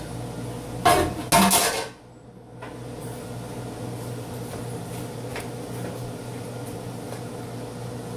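A wooden spatula stirring sliced onions in a frying pan, with two loud clatters of pan and plate about a second in. A steady low hum and faint light scrapes and taps follow.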